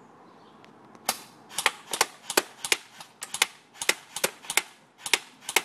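AK-74U airsoft gun firing on semi-automatic: a quick string of sharp cracks starting about a second in, about three a second, each heard as a doubled click.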